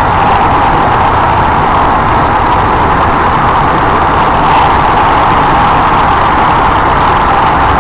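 JR West 223 series 1000 electric multiple unit running at speed through a tunnel, heard from inside the car: a loud, steady rumble of wheels on rail and tunnel noise.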